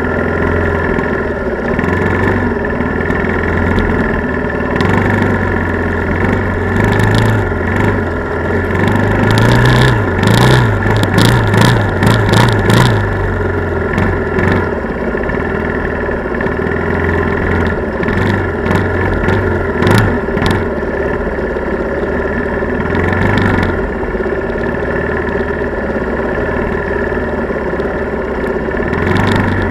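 Quad ATV engine running steadily while riding, heard close up. About ten to thirteen seconds in it revs up with a burst of knocks and rattles, and there is another short knock about twenty seconds in.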